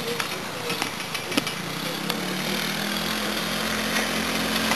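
Small 10 hp go-kart engine running steadily, coming in about two seconds in and growing louder as the kart drives closer.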